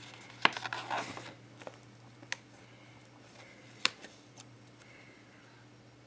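Paper and stickers being handled on a spiral planner: a sharp tap and a short paper rustle about half a second in, then a few single light ticks as a sticker is peeled and pressed down.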